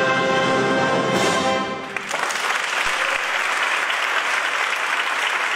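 Concert wind band holding a sustained closing chord of brass and woodwinds, which ends about two seconds in; the audience then applauds.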